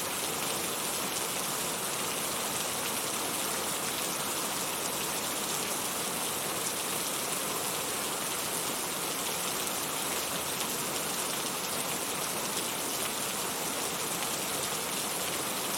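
Heavy rain falling in a steady, even downpour, loud and hissing with no let-up.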